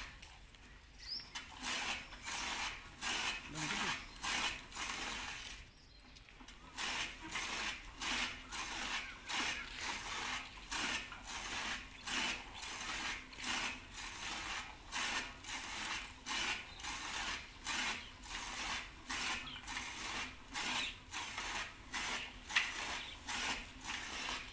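Hand milking a cow: milk squirting from the teats into a steel tumbler in a steady rhythm of about one and a half squirts a second, pausing briefly near the start and again about six seconds in.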